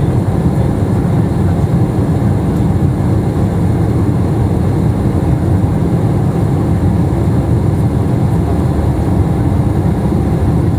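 Steady cabin noise inside an Airbus A320neo on approach, from its Pratt & Whitney PW1100G geared turbofan engines and the airflow past the fuselage: a loud, even, deep rumble.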